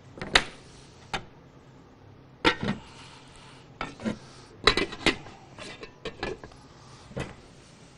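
Dishes and serving utensils clinking and knocking against each other in about a dozen sharp, irregularly spaced strikes.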